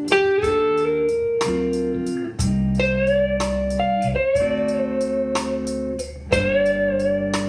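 Instrumental passage of a slow song: a slide-guitar lead with a gliding, wavering pitch over sustained chords and a steady drum beat.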